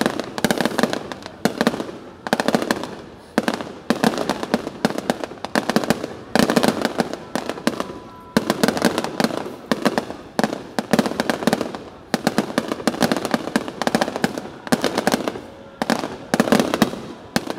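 Fireworks going off in a continuous barrage: dense runs of rapid bangs and crackles, one cluster after another about every second or so, each trailing off before the next.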